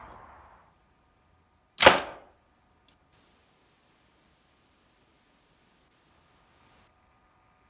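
Multi-stage electromagnetic coil gun: a high electronic whine rising in pitch as its capacitors charge, then one sharp crack as it fires a nail. A click about a second later, then the high whine of the charger starts again, dipping and rising in pitch for about four seconds before it cuts off.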